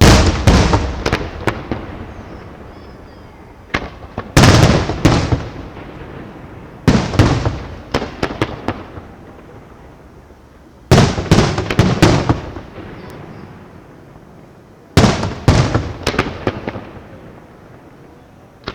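Fireworks going off in five volleys a few seconds apart. Each volley is a loud bang followed by a quick string of sharper cracks that fades over a second or two.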